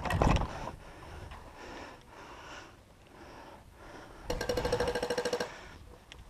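An airsoft electric gun firing one full-auto burst of about a second, a fast even rattle over a motor whine, a little past the middle. Thumps and rustling of movement come near the start.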